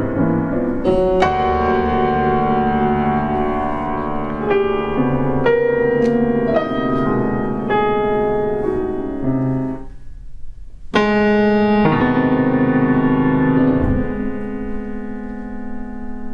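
Grand piano played solo: sustained chords struck one after another and left to ring into each other. About ten seconds in the sound dies down briefly, then a loud chord is struck and held, fading softer near the end.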